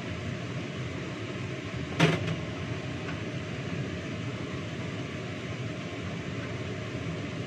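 Steady whooshing hum of a kitchen range hood extractor fan running over the stove, with one sharp knock about two seconds in.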